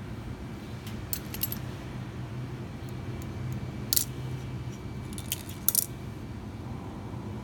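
Light metallic clicks of thin safety-pin steel wires touching as they are turned in the fingers: a quick cluster about a second in, a sharper single click about four seconds in and a couple more soon after, over a steady low background rumble.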